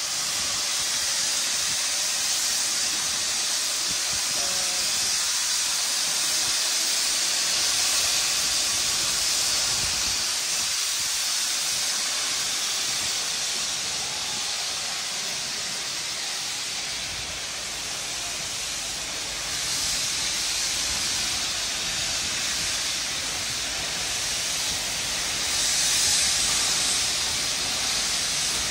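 Steam locomotive hissing steadily as it blows steam out low across the tracks and draws slowly in, the hiss swelling louder near the end.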